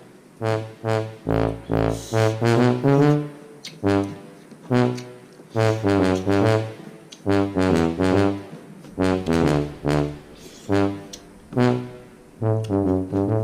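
Background music led by brass, trombone-like short notes in a bouncy rhythm over a bass line.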